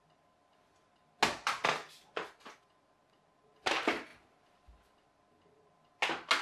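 A run of sharp taps and knocks in a room: about five close together in the second and third seconds, one near the middle, and two more near the end.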